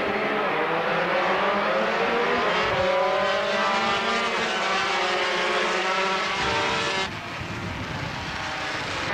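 A pack of 250cc two-stroke Grand Prix racing motorcycles accelerating hard down the straight. Many engines whine over one another, rising in pitch as they rev up through the gears. About seven seconds in, the sound suddenly becomes quieter and duller.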